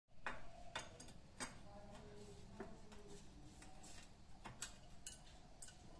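Faint, irregular metallic clicks and ticks of a pipe wrench being set and worked on the iron pipe of a hand pump, about a dozen spread over several seconds.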